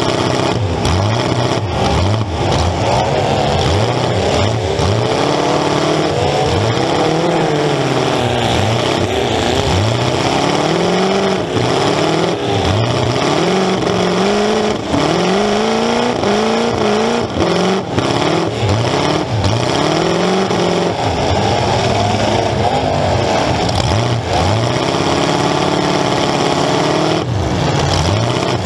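Demolition derby car's engine running loud through open exhaust pipes standing up out of the hood, revved up and falling back over and over as the car drives and rams. Sharp knocks of collisions break in now and then.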